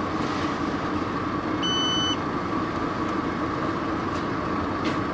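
Steady hum of an idling car inside its cabin, with a single short electronic beep about two seconds in.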